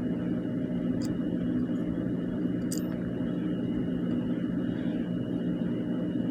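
Steady low mechanical hum with a faint high whine, and a few light clicks.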